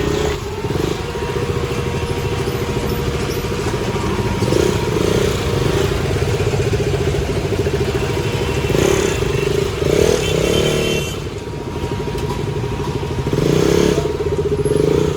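KTM Duke 200's single-cylinder engine running steadily, revved briefly a few times, while being checked for an irritating mechanical noise. The owner and mechanic trace that noise to a worn cam chain tensioner with too much play.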